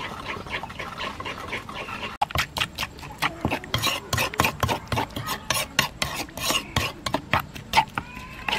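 Metal spoon stirring a watery chili-lemon sauce in a clay mortar, clinking and scraping against the bowl in quick repeated strokes that start about two seconds in.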